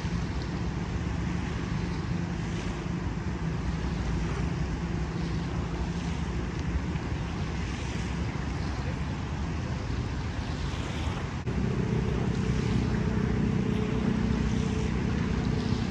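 An engine running steadily under way, with wind rushing over the microphone. About 11 seconds in, its note rises and it gets louder, as if the engine is pulling harder.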